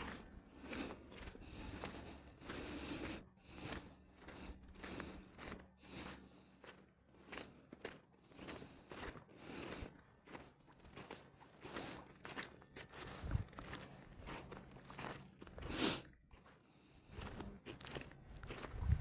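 Footsteps crunching in snow at a steady walking pace, roughly two steps a second.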